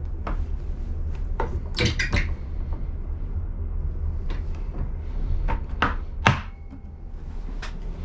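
Hinged wooden fold-out table in an ICE 1 first-class compartment being unfolded and handled: a string of sharp wooden knocks and clacks as the leaves are flipped over and set down, loudest about two seconds in and again just after six seconds, over a steady low hum.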